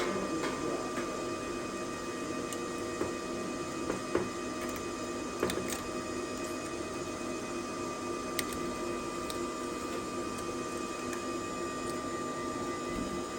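Steady machine hum made of several fixed tones, with a few light clicks and taps from handling cables and hardware.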